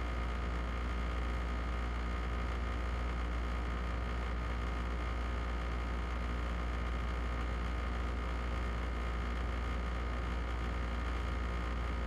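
Air conditioner running steadily: a deep even hum with a faint high tone and a whooshing hiss of moving air above it.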